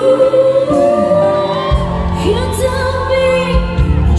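Two women singing a pop ballad duet live, holding long notes with vibrato over a backing band. The band's low end comes in strongly under the voices a little under two seconds in.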